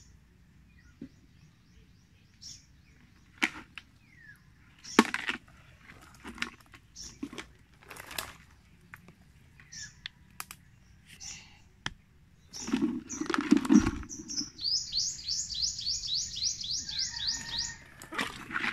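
Scattered knocks and rustles, with a louder, fuller burst about two-thirds of the way in. Then a bird's fast trill of rising chirps, about five a second, lasting around three seconds near the end.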